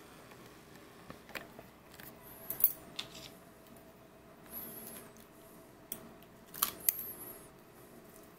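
Takeout food packaging being handled on a table: a few sharp clicks and several brief crinkles of plastic and foil, over a faint steady hum.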